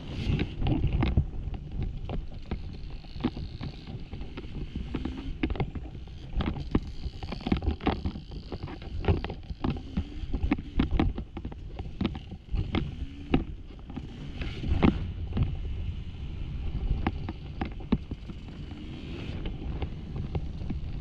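Dirt bike engine running and revving on a rocky off-road trail, with frequent sharp knocks and clatters from rocks and the bike over rough ground.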